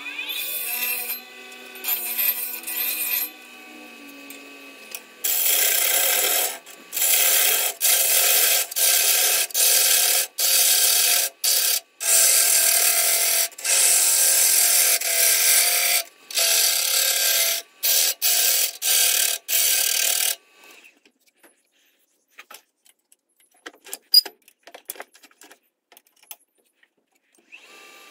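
Turning gouge cutting a spinning eucalyptus burl bowl blank on a wood lathe: a run of rasping cuts in passes of about a second each, from about five seconds in to about twenty seconds in. Before and after them only the lathe's faint running and a few small ticks are heard.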